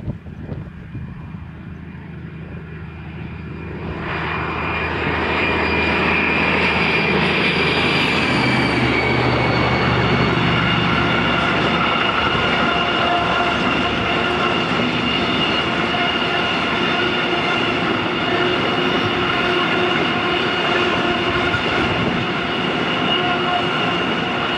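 DB class 218 diesel-hydraulic locomotive approaching and passing with its engine running hard; the sound swells from about four seconds in and its pitch drops as it goes by. A long train of loaded car-carrier wagons follows, rolling past with a steady rumble of wheels on rails.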